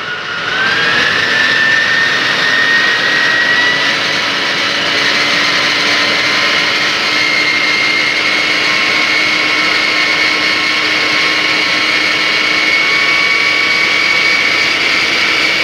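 Fire truck's diesel engine and fire pump being throttled up while pumping water, a whine rising in pitch over the first few seconds, then running steadily at high revs. The pressure is being brought up to about 200 PSI against the newly set relief valve.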